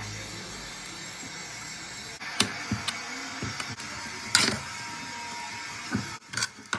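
Small steel parts knocking and clicking as two steel plates, a magnet and screws are handled and lined up, over a steady hiss. The knocks are irregular and scattered, with the loudest near the middle.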